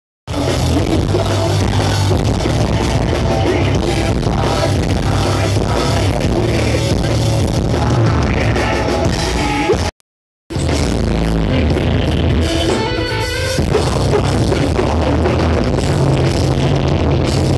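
A live rock band playing loud with a singer on the microphone, recorded on a phone's microphone from the crowd. The sound cuts out for about half a second around ten seconds in, then another stretch of live band music carries on.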